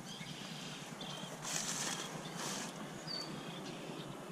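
Footsteps rustling and crunching through brush and dry grass, two louder steps in the middle, over steady outdoor background noise.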